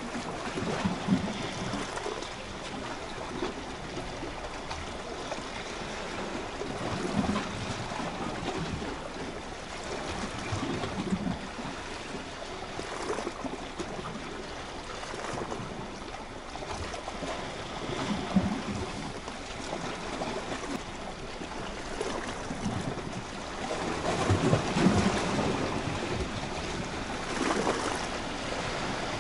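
Small sea waves washing against shoreline rocks: a steady wash of water noise that swells into a louder slosh every few seconds.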